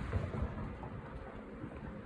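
Two light knocks of the scooter's air filter being handled and fitted back into its housing, over a low rumble of passing traffic that fades.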